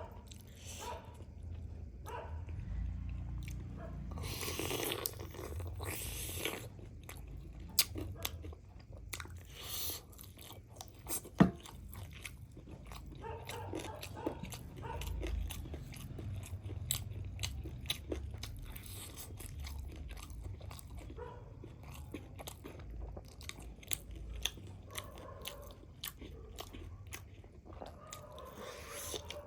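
A person biting into and chewing fried chicken leg pieces dipped in chicken soup, with crunching and many short crisp clicks of the coating breaking.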